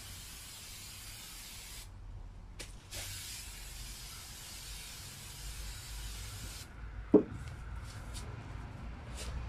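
Aerosol prep spray hissing from a spray can onto bare steel BMX handlebars. The spray stops about two seconds in, gives two short puffs, then runs again until nearly seven seconds. A single sharp knock follows just after seven seconds.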